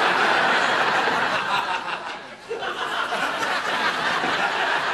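Sitcom studio audience laughing. The laughter eases briefly a little past two seconds in, then picks up again.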